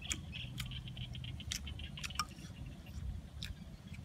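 Close-miked mouth sounds of someone eating fried chicken: wet chewing and lip smacking, a quick run of small clicks in the first half, with a few sharper clicks spread through.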